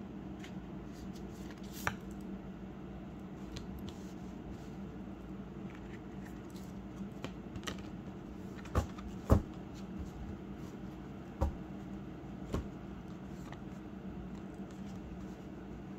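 Steady low room hum with a few sharp taps and clicks, one near the start and several in the second half, from tarot cards being handled and laid down.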